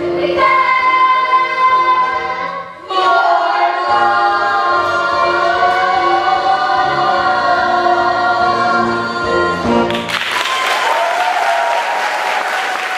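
A cast of young voices sings a musical-theatre number with backing accompaniment and ends on a long held final chord. The chord cuts off about ten seconds in, and the audience breaks into applause.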